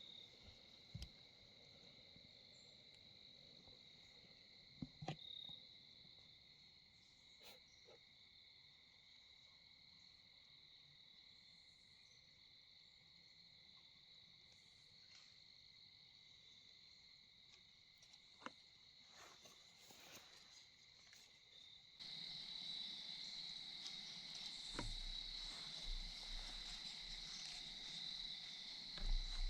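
Crickets singing in a steady, faint background chorus, with a few scattered faint ticks and rustles. The chorus turns louder and fuller about three-quarters of the way through.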